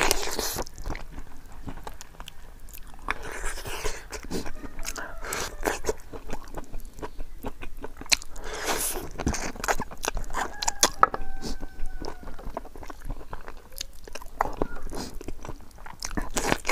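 Close-miked eating sounds of a man biting and chewing cooked pig feet, with many short wet clicks of lips and teeth throughout.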